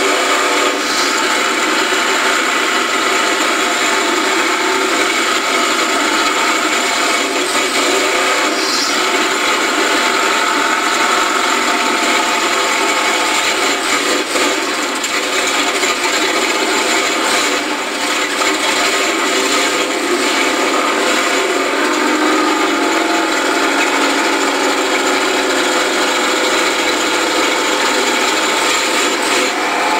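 Mud race truck's engine running steadily and loudly, heard from inside the open-caged cab.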